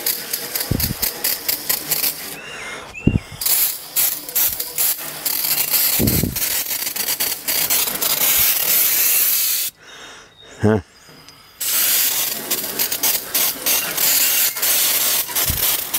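Aerosol can of degreaser spraying in long hisses inside a gas grill, with a crackly, spitting edge to the spray. The spraying stops briefly about two and a half seconds in and again for a couple of seconds around the ten-second mark.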